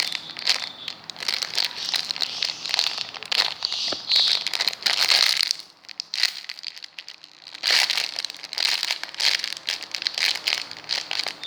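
Crinkling plastic packaging as a donut squishy toy in its bag is handled, with a quieter pause just past the middle.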